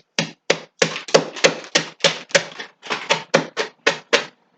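A cup pounded again and again into a bowl of dry bird-seed mix (cornflakes, eggshells, tortilla chips), crushing it: a steady run of sharp knocks, about three a second.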